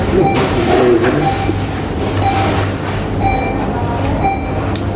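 An electronic beep repeating about once a second over a steady low hum and background din.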